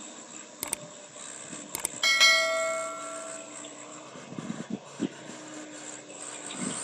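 A single sharp metallic strike, bell-like, ringing on in several clear tones and dying away over about a second and a half. Two short clicks come before it, over a steady background hum.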